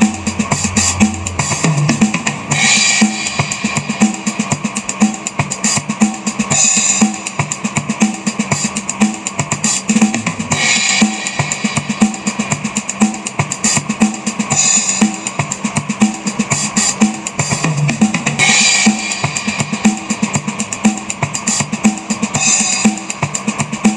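Background music: a steady drum-kit beat with a cymbal crash about every four seconds.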